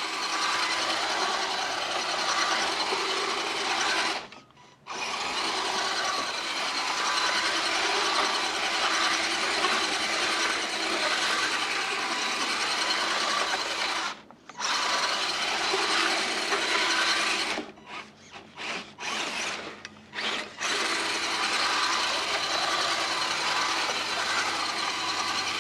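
Axial SCX10 Deadbolt RC truck's electric motor and gears whining at high throttle as it spins donuts in snow. The whine cuts off briefly about four seconds in and again around fourteen seconds, then stops and starts in several quick throttle blips between about seventeen and twenty-one seconds.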